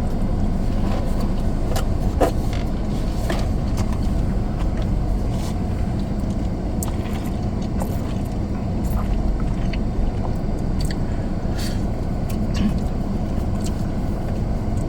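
Steady low rumble of a car heard from inside the cabin, with scattered short crunches and clicks of someone eating fried chicken wings.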